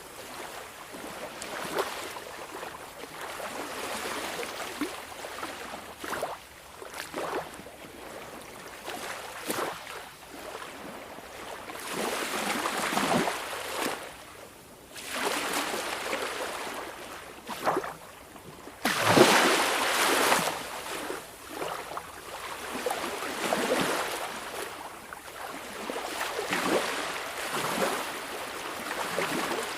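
Small waves of a calm sea washing onto the shore: irregular surges of splashing that swell and fade every few seconds, the largest about two-thirds of the way through.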